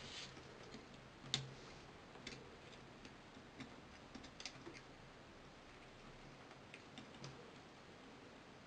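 Faint, scattered clicks and taps of a small hand tool and fingertips on a mobile phone's circuit board and plastic frame during disassembly, with one sharper click about a second and a half in.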